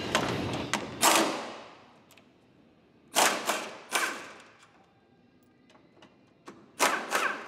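Metal hand tools and engine parts knocking and clanking, in three quick groups of two or three sharp knocks, each ringing briefly.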